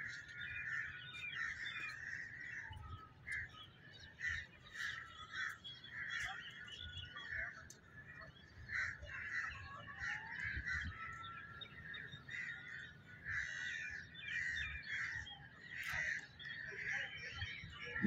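Many birds calling and chattering, a dense run of short calls without a break, with a few soft low thumps among them.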